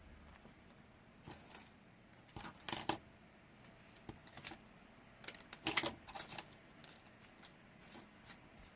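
Sheets of paper being handled and shuffled: scattered brief rustles and light taps, the loudest cluster about six seconds in.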